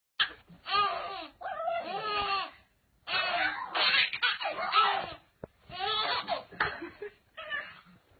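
A toddler laughing in a string of short bursts, the pitch rising and falling in squeals.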